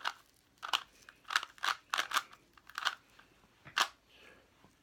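Plastic 3x3 Rubik's-style cube being turned by hand: a run of sharp clacks as the layers snap round, some in quick pairs, easing off near the end.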